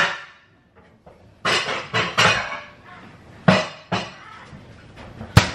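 Kitchen clatter of a mixing bowl, dishes and a baking pan being handled, a few scraping and knocking bursts, with one sharp knock near the end.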